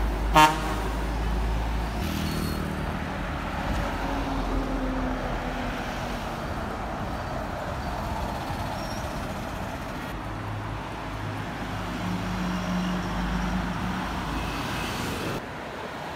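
Coaches driving past on a street, their diesel engines running over steady road traffic noise, with a short horn toot just after the start. The sound drops suddenly near the end.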